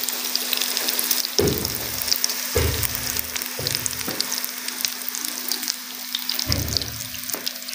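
Oil sizzling and crackling steadily as potato kababs fry in a pan, with a few dull low thumps and a steady low hum underneath.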